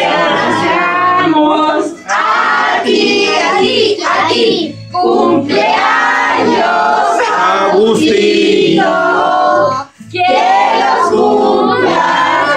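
A group of adults and children singing a birthday song together in phrases, with a regular clap-like beat underneath about twice a second.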